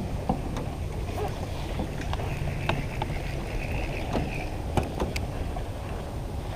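Wind rumbling on the microphone aboard a small fishing boat, with scattered light clicks and knocks from the rod and reel being handled.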